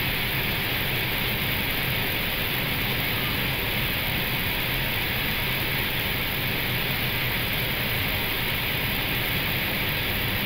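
Steady rushing of airflow and engine noise inside an Airbus A320 cockpit on short final approach, unchanging throughout.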